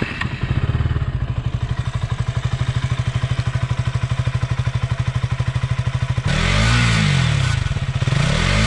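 KTM Duke 200 BS6's single-cylinder four-stroke engine idling steadily through its underbelly exhaust. It is revved twice, about six and eight seconds in, each rev rising and dropping back to idle.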